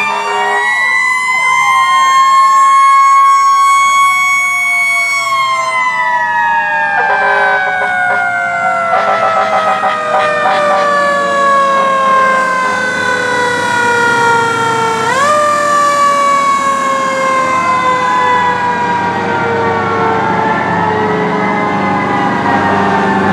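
Several fire engine sirens sounding together as the trucks pass: one long siren tone slides slowly down in pitch, jumps back up about fifteen seconds in and falls again, while other sirens wail up and down.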